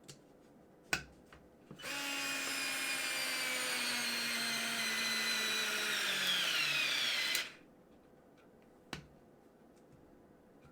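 Parkside PASS 4 A1 4-volt cordless electric screwdriver run in full-power mode, with the clutch out of play, for about five and a half seconds. Its motor and gear whine slowly drops in pitch, sinks more steeply just before it stops, then cuts off. A few light clicks come before and after.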